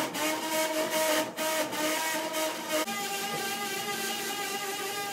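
Angled oscillating bone saw on the Stryker Mako robotic arm running with a steady whine of several notes. About three seconds in it shifts abruptly to a new steady pitch.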